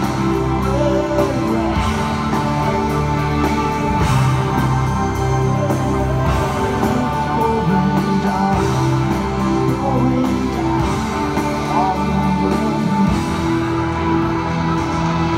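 A live rock band playing through a large arena PA, heard from the audience: drums and electric guitar in a steady full-band passage with sustained keyboard-like notes.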